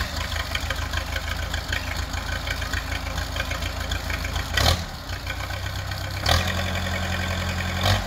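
Case 580C backhoe's rebuilt 207D four-cylinder diesel engine idling just after its first start-up. There is a brief louder moment about four and a half seconds in, and from about six seconds the note is steadier and slightly louder.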